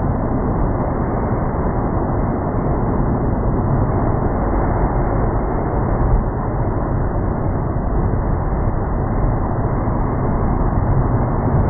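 Muffled, steady rush of breaking surf and wind, dull and low with the treble cut away.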